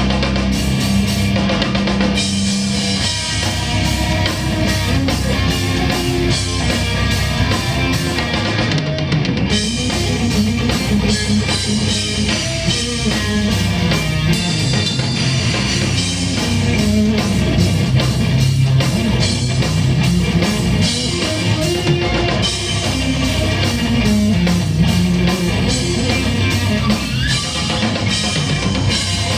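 Live rock band playing a song: drum kit and electric guitar over bass, loud and continuous.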